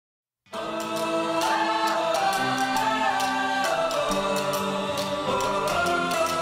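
Music: an instrumental song intro of held chords with a light ticking beat, starting about half a second in after silence.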